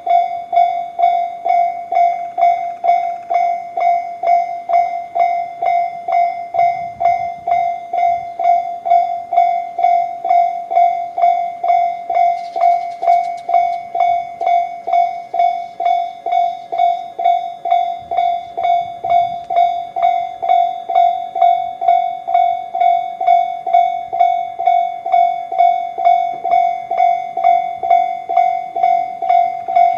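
Japanese level-crossing alarm of the Tobu Railway 'C' sound type, ringing in a steady, even rhythm of about one and a half strikes a second. Each strike is a bright ringing tone that fades before the next, warning that a train is approaching.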